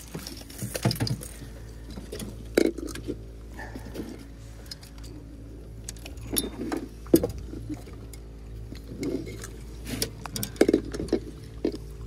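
Scattered clinks and knocks of objects being handled, over a steady low hum.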